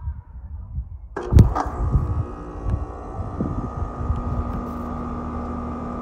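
Carrier HVAC unit starting up about a second in: a sudden onset with a few knocks and clicks, then running with a steady hum and a high steady whine, over low irregular rumbling.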